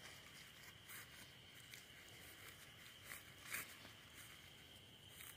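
Near silence: a few soft footsteps on grass, over a steady, faint high-pitched drone.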